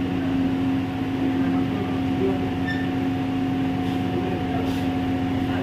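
Steady machinery hum with a constant low tone and a fainter, higher tone above it, unchanging throughout.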